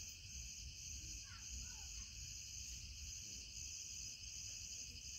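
Faint steady chorus of insects, crickets by their sound, with a gently pulsing high buzz. A few faint short gliding chirps come a little over a second in.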